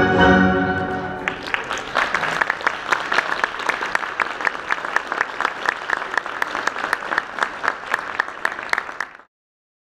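The last chord of orchestral ballet music rings and fades in the first second or so, then an audience applauds, with many sharp single claps standing out, until the sound cuts off suddenly near the end.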